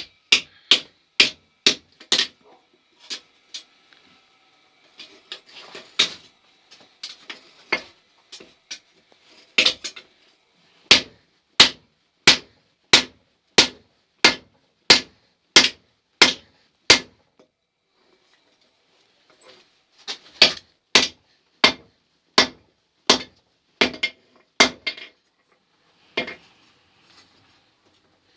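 Hammer blows on a steel anvil built from scrap, struck in steady runs of about one and a half blows a second. Each blow rings briefly with a high metallic tone. There is a pause of a few seconds between runs and some lighter, scattered taps early on.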